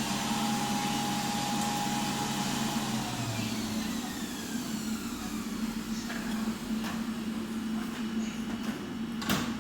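Popcorn vending machine running with a steady motor and fan hum; a higher motor tone winds down and stops about three seconds in, and a sharp click sounds near the end.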